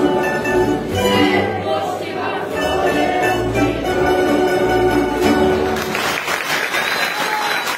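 Tamburica ensemble playing a Slavonian folk tune: plucked tamburas over a plucked berde (double bass). The piece ends about six seconds in, and applause follows.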